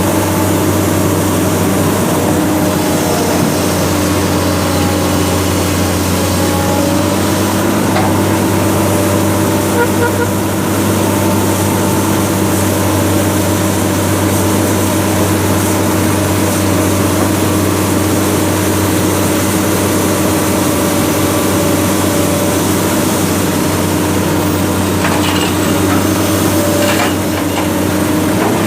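Heavy diesel engine of an excavator or truck running steadily at a constant speed, with a few faint knocks.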